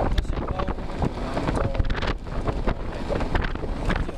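Wind buffeting the microphone in a heavy, gusty rumble while riding an electric scooter at road speed. The scooter's own motor is barely heard beneath it.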